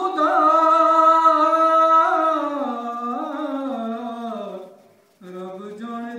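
A man's solo voice chanting a devotional poem without accompaniment: long held notes that slowly fall in pitch, fading out about five seconds in, before he starts the next line.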